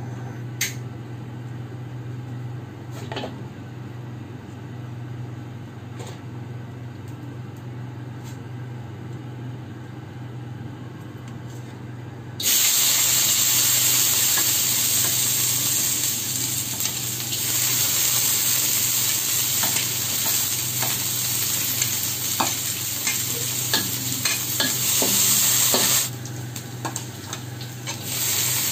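For the first twelve seconds, a steady low hum with a few light taps while the wok heats on the gas burner. Then, suddenly, sliced shallots and garlic start sizzling loudly in hot oil in the wok, stirred with a metal spatula. The sizzle dips a little before the end and picks up again as chopped chilies and tomatoes go in.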